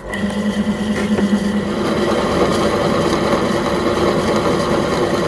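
Pillar drill running and boring a hole into a steel plate: a steady motor hum with the grind of the bit cutting, starting abruptly.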